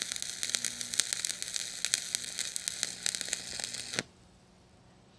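Stick-welding arc crackling and sizzling with rapid sharp pops as the rod burns onto steel plate. The arc cuts off suddenly about four seconds in.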